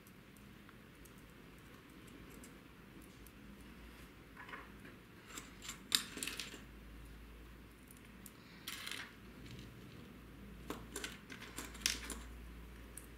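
Light clicks and clinks of small metal parts and hand tools being handled on a workbench during assembly of a mini RC drift car, coming in a few scattered clusters, the sharpest about six seconds in and again near the end.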